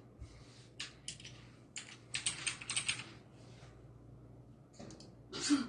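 Short runs of light clicking and tapping, like keys on a computer keyboard, with a brief louder burst near the end.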